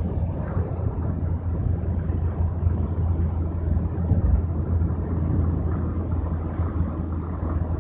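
Steady low rumble of engine and tyre noise inside a moving road vehicle, heard through the cabin.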